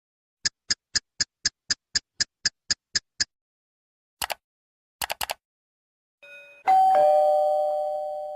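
A run of about a dozen quick, even ticks, about four a second, then a single click and a quick triple click. Then a two-tone doorbell chime rings out, a higher note and then a lower one, fading slowly.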